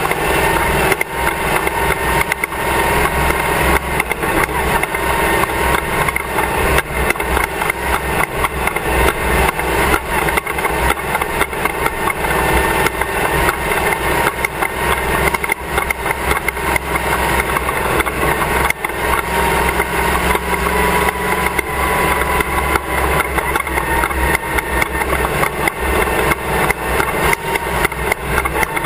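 Class 1 off-road race car driving at race pace, heard on board at the rear of the car: the engine runs continuously under a constant clatter of knocks and jolts.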